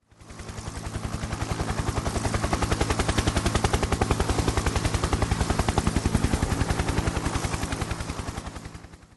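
Helicopter rotor blades chopping in a rapid, even beat over a low steady engine hum. The sound fades in, holds, then fades out near the end.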